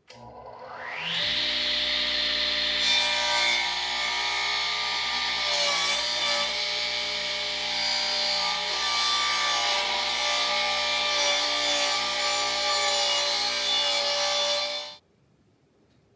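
Electric power tool spinning up over about a second, then running steadily under load against the work, stopping abruptly near the end.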